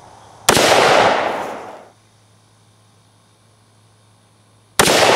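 Two shots from a Smith & Wesson Model 65 revolver in .357 Magnum, about four seconds apart, each a sharp crack followed by an echo that dies away over a second or so.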